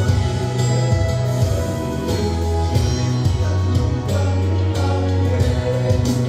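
Male vocal ensemble singing a Christian song in close harmony through microphones, with sustained low bass notes that shift every second or so underneath.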